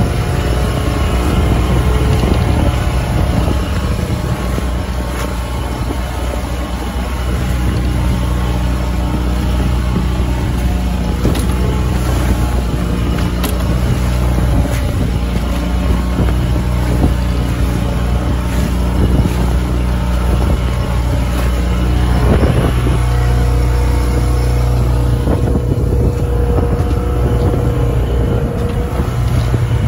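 A boat's engine droning steadily under way, with the rush of waves and water along the hull; the drone shifts pitch a couple of times.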